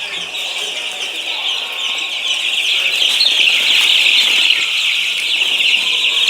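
A flock of chickens, many birds calling at once in a dense, steady high-pitched chorus that grows a little louder about halfway through.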